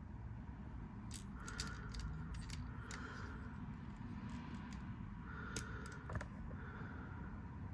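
Plastic parts of a Transformers action figure clicking and scraping as they are handled and folded during its transformation: a string of sharp clicks with short scrapes, the loudest click about five and a half seconds in.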